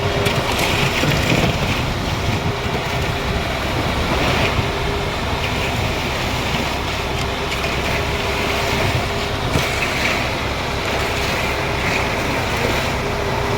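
Concrete mixer running steadily, a constant mechanical noise.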